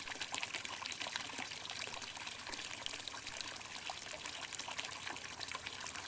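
Hot spring water pouring and trickling steadily, a constant splashing babble.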